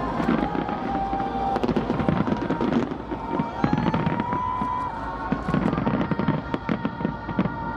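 Fireworks display: a rapid run of bangs and crackles from bursting shells, overlapping one another throughout.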